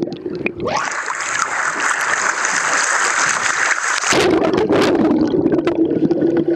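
Water churning around a tiger shark feeding at the surface, heard from a camera at the waterline. First comes a muffled underwater rumble; from about a second in, a loud hissing rush of splashing water lasts about three seconds, and then the muffled underwater rumble returns.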